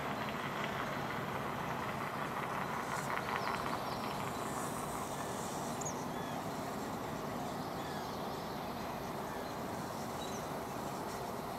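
Steady rushing background noise, with a few faint short high chirps now and then.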